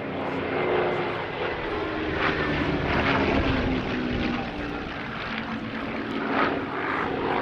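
Rolls-Royce Merlin V12 piston engine of a WW2 fighter flying past, growing louder through the middle and easing off again, its pitch shifting as it passes.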